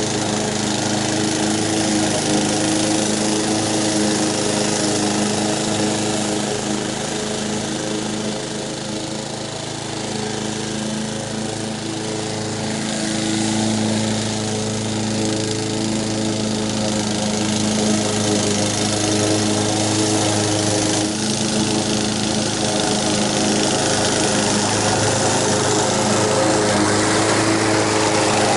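Honda HR194 walk-behind mower engine running steadily while cutting grass, its carburetor freshly repaired so it stays running off choke. It fades somewhat as the mower moves away and grows louder again toward the end.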